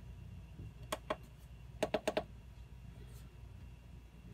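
Keypad buttons on an XSY-AT1 inverter being pressed to set a parameter value: two short clicks about a second in, then a quick run of about four clicks about two seconds in. A low steady hum runs underneath.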